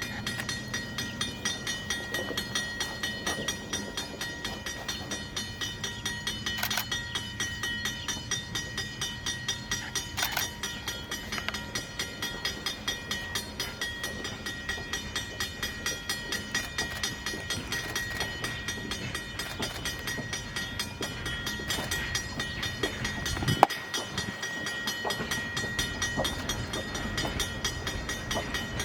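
Steam train of ALCO 2-8-2 Mikado locomotive No. 40 running along the track, with a steady, even, fast-repeating beat. A single sharp knock comes late on.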